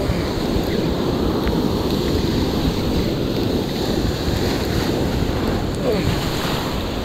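Surf breaking and washing over rocks, with wind buffeting the microphone.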